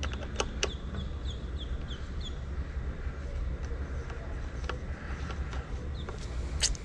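Screwdriver clicking and scraping against the metal battery-cradle screw as it is driven in, with a few sharp clicks, the loudest near the end. A bird chirps in a quick run of short falling notes in the background.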